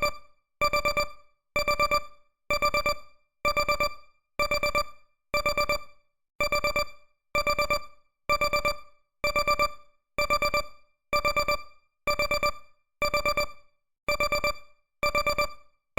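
Digital alarm-clock beeping: groups of four quick electronic beeps, repeating about once a second, signalling that the countdown timer has run out.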